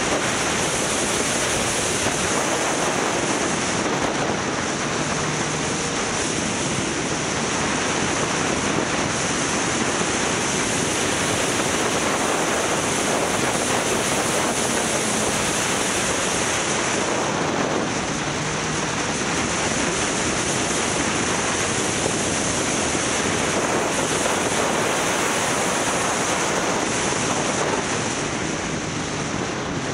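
Wind rushing over the microphone on a moving motorcycle, a steady dense roar, with the motorcycle's engine faint beneath it, its pitch shifting a few times.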